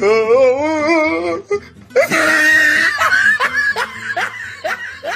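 A string of meme sound-effect clips: first a warbling, wavering voice-like tone, then about two seconds in a sudden noisy burst followed by rapid, rhythmic laughter.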